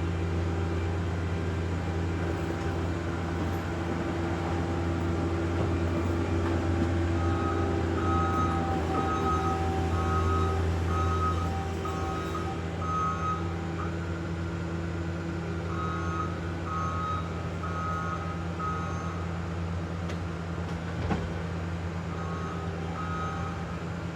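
Diesel engine of a piece of tracked earthmoving equipment running steadily, with its backup alarm beeping a little more than once a second in runs that begin about a third of the way in, stop briefly, and return twice; a single sharp knock near the end.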